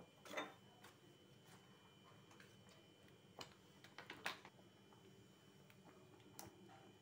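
Thick Schezwan chilli sauce simmering in a pan: very quiet, with a few sharp pops and ticks from bubbles bursting at the surface, the loudest about half a second in and again just after four seconds.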